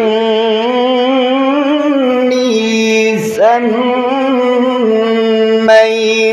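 A man reciting the Quran in the melodic tajweed style, holding long drawn-out notes with a slight waver. The note breaks off briefly about three seconds in, and a new held note begins.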